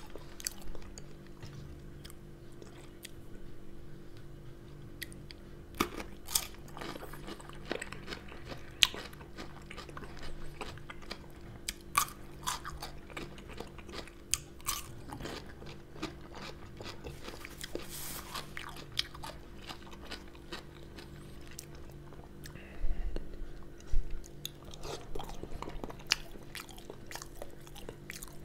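Close-miked eating: chewing and biting with crisp crunches as fresh cucumber is bitten, and small mouth clicks throughout. A steady low hum runs underneath, and two dull thumps come near the end.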